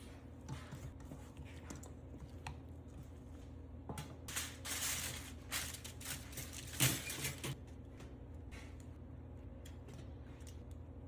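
Kitchen handling sounds: scattered clicks, then a few seconds of rustling and scraping with a sharp knock about seven seconds in, over a steady low hum.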